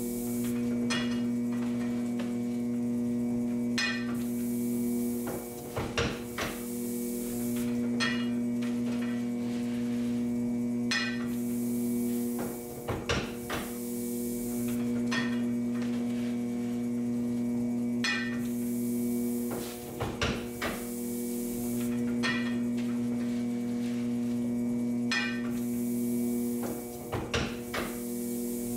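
Antique platen printing press running: a clattering knock about every two seconds as each impression is made, over a steady mechanical hum.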